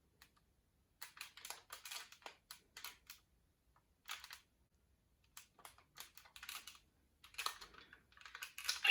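A folded-paper toy being handled, giving irregular runs of short paper crinkles and taps in several clusters.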